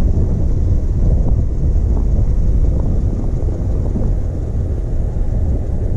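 Wind buffeting the camera microphone: a loud, uneven low rumble with no pitch to it.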